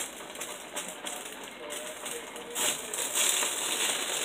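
Ground beef sizzling and crackling as it browns in a stainless steel pot, with a spoon stirring through it; the sizzle grows louder about two and a half seconds in.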